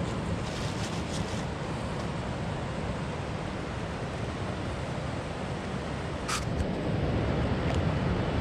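Steady rush of river water, with one brief sharp sound about six seconds in.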